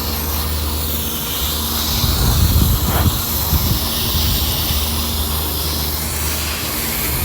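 Steady rushing-air hiss with a low hum from running HVAC equipment during a clogged condensate drain clean-out, with a louder, rougher rumble about two seconds in that lasts a second or so.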